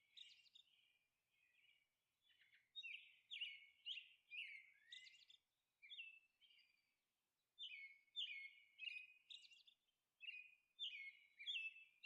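Faint bird chirping: runs of short, high chirps repeating several times a second, with brief pauses.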